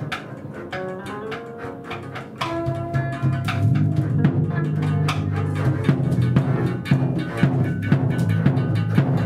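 Live free improvisation by a small ensemble: a bowed double bass holds low notes that swell and get louder about two and a half seconds in, under short guitar notes and irregular percussive hits.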